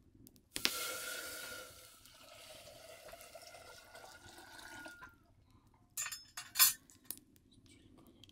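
Water poured into a vessel, starting suddenly and running for about four seconds, then a few sharp clinks of kitchenware near the end.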